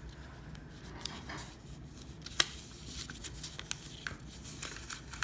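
A square of white paper being handled and folded by hand: soft rustles and creasing clicks, with one sharp tick about two and a half seconds in.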